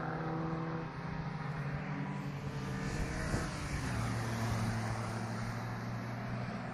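Alfa Romeo saloon race cars running at speed on the track, engines droning steadily. One passes close about three seconds in, with a swell of engine and tyre noise.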